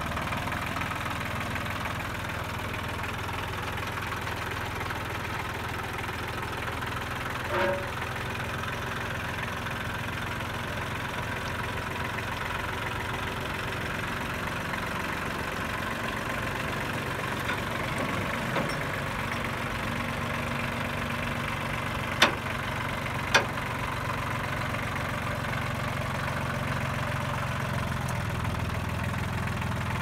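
New Holland TC30 compact tractor's three-cylinder diesel engine running steadily at low speed while the tractor is driven off a trailer. Two sharp knocks come about a second apart, some two-thirds of the way through.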